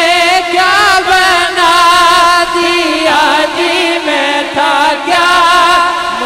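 A man's solo voice sings a devotional naat through a microphone, holding long notes with wavering, melismatic ornaments. A steady lower tone is held beneath the voice.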